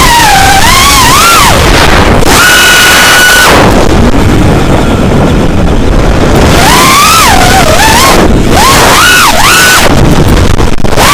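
Motor and propeller of an FPV model aircraft whining, the pitch swooping up and down with the throttle and holding steady for about a second at a time, under heavy wind noise on the onboard camera's microphone.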